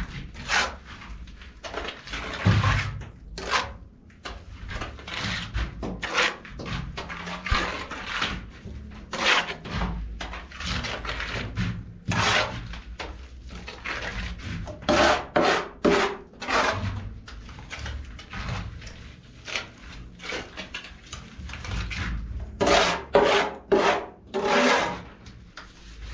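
Steel trowel scraping and rubbing through wet cement plaster: mortar scooped off a board and spread across a concrete ceiling in irregular rasping strokes, some short and some longer.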